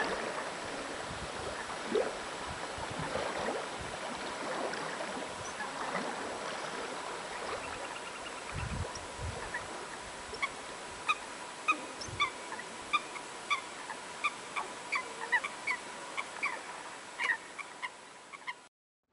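Birds calling over a steady wash of background noise. Short, pitched calls come thick and fast, about two a second, from about halfway through, then the sound cuts off just before the end.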